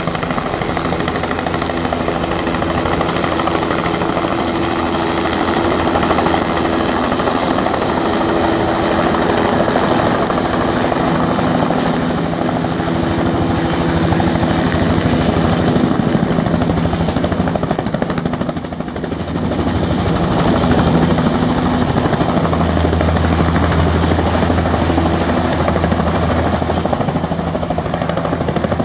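Bell 206-series turbine helicopter with a two-bladed main rotor, running steadily as it hovers in and sets down on the helipad. Its loudness dips briefly about two-thirds through.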